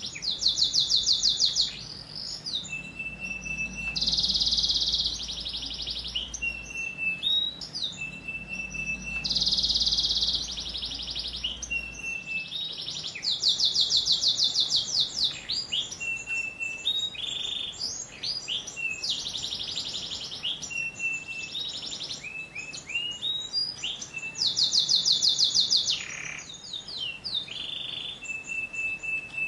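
Domestic canary singing a long varied song. Loud runs of very fast rolling trills alternate with short steady whistled notes and quick sliding notes, all high-pitched.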